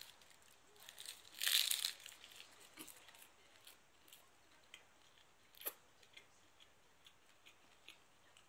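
A person eating: a short loud rustle of packaging about a second and a half in, then quiet chewing with small mouth clicks and one sharper click in the middle.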